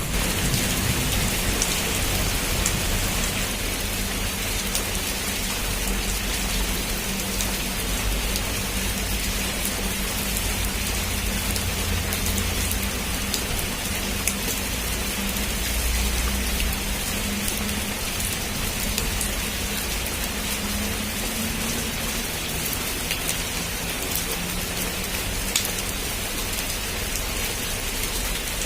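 Heavy rain falling steadily on a roof: a dense, even patter with scattered sharper drop hits. Underneath runs a low rumble that is strongest in the first half.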